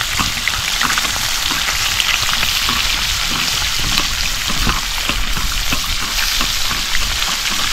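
Whole fish frying in bubbling oil in a black skillet over a wood fire: a steady sizzle full of small crackling pops. Near the end a spatula works among the fish in the pan.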